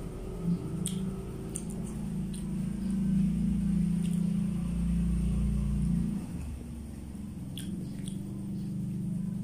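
A motor vehicle's engine running at low revs, swelling midway and dropping away about six seconds in, under scattered short clicks of chewing and eating by hand.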